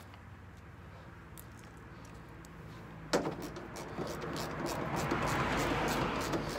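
Small screwdriver clicking and scraping on a fender flare screw in a truck's plastic wheel-well liner, with one sharp click about three seconds in and light ticking after. A broad rushing noise swells up over the second half.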